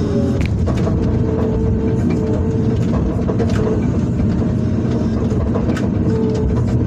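Hydraulic excavator's diesel engine running steadily, heard from the operator's cab, with a steady whine over the low rumble and a few brief clicks.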